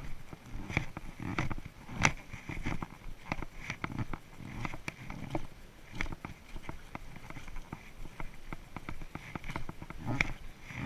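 Irregular footsteps and knocks on a muddy hiking trail, with clicks and rubbing from a handheld camera.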